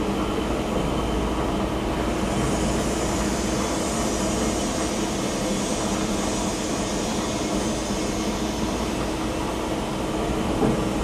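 Hitachi Seiki NR23 CNC lathe running: a steady machine hum with a constant tone, and a hiss that rises about two seconds in.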